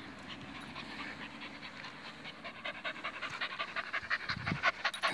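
Working cocker spaniel panting hard and fast after running, close by, at about five or six breaths a second. The panting grows louder about halfway through.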